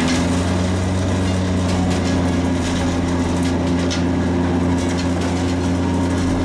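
Jenz HEM 561 Z wood chipper running with a steady engine drone at an even pitch, with a few light clicks.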